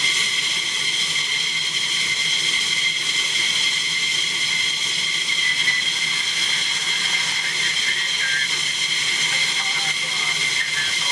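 F-15E Strike Eagle's jet engines idling: a steady high whine of several held tones over a continuous rushing hiss.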